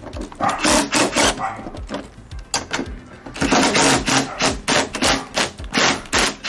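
Cordless impact driver rattling in a string of short trigger bursts, backing the bolts out of a seat's mounting brackets.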